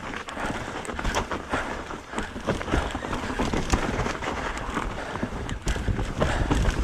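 Mountain bike riding fast down a rough dirt trail: tyres crunching and the bike rattling and clattering irregularly over roots and rocks, over a steady low rumble of wind on the microphone.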